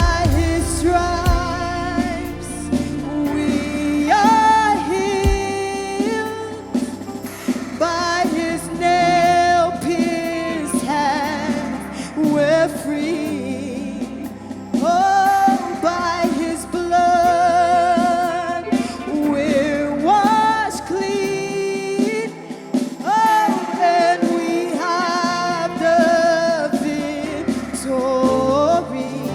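Gospel praise and worship song: a lead singer with vibrato and backing vocals over a live band, the bass dropping out for a few seconds past the middle.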